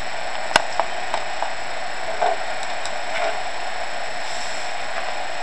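Light clicks and taps as ingredients are handled and dropped into a blender jar whose motor is not running, over a steady hiss. The sharpest click comes about half a second in, followed by a few softer ticks.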